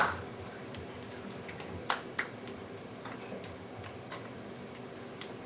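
Applause cutting off at the start, then quiet room tone broken by a few scattered small clicks and knocks, two sharper ones about two seconds in.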